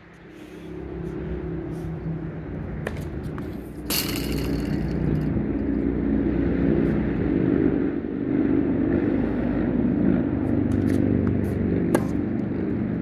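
A steady low engine drone from a motor vehicle, swelling up in the first second or two and then holding. A short hiss comes about four seconds in, and a tennis racket strikes the ball with a sharp crack near the end.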